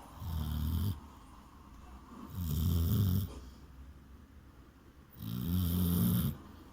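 A chow chow dog snoring in its sleep: three slow, rumbling snores, each lasting about a second, with quieter breathing between them.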